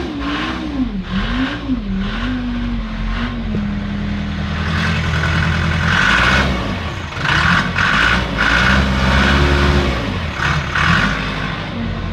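Case backhoe's diesel engine running just after catching on a hard cold start, after weeks of sitting in the cold. Its speed swings up and down unevenly for the first few seconds, then settles and climbs and drops back twice in the second half.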